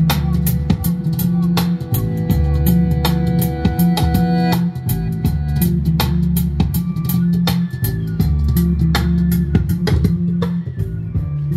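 Music with guitar, bass guitar and a drum kit on a steady beat, played back at a healthy level through a pair of Peecker Sound A300 speaker cabinets, each with two 6.5-inch drivers, rated 150 W.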